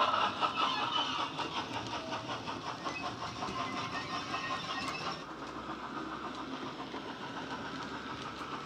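Model freight train running away from the microphone: the Bachmann J11 model locomotive's Wheeltappers DCC sound decoder playing its steam and train sounds through its speaker, with a rhythmic clatter that fades as the train goes. About five seconds in, the sound drops suddenly to a quieter, more distant running sound.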